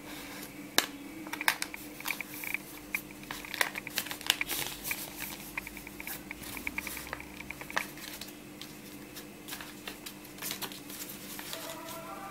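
A folded sheet of paper being handled and pulled open into an origami boat: irregular crinkles and sharp crackles, busiest in the first several seconds, then sparser. A steady faint hum runs underneath.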